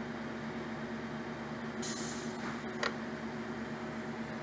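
Metkon FORCIPOL 1V grinder-polisher with FORCIMAT specimen mover running with a steady motor hum. A short burst of hiss comes about two seconds in, followed by a brief click.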